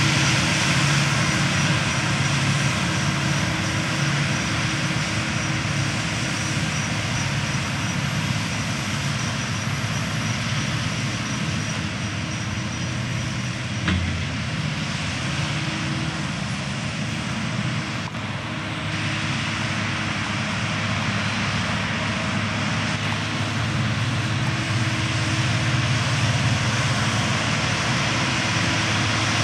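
Deutz-Fahr tractor's diesel engine working steadily under load as it pulls a seed drill across a field: a constant low drone, with a short knock about halfway through.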